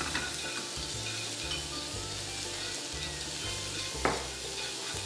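Sliced onions sizzling in a wok, in the little oil left after deep-frying, as they are stir-fried with wooden chopsticks until soft. There is one sharp tap about four seconds in.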